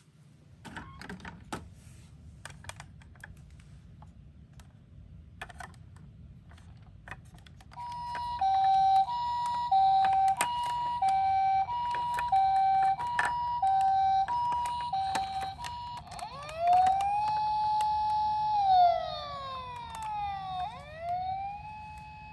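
Toy ambulance's electronic siren: a few plastic clicks, then an alternating two-tone hi-lo siren, the Japanese ambulance 'pee-poh' pattern, which near the end changes to a rising and falling wail.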